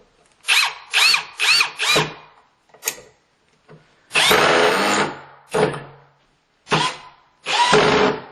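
Ridgid Gen5x 18V brushless hammer drill driving a screw in short trigger pulls, the motor whine rising and falling with each pull: four quick bursts, a longer run of about a second, then three more short bursts. The drill is in drill mode rather than screw mode, so the clutch never cuts out.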